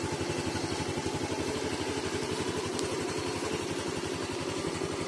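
A TVS Jupiter scooter's single-cylinder four-stroke engine idling steadily with an even, fast pulse. It has just been started by the anti-theft alarm's remote ignition button.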